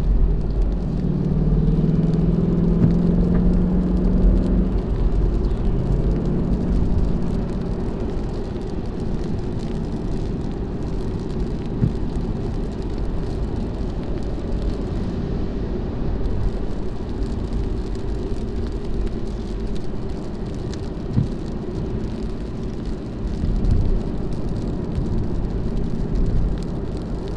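Inside the cabin of a moving 2018 Ford Mustang GT on a wet road: a steady low rumble of its V8 engine and tyre and road noise. An engine tone stands out over the first few seconds.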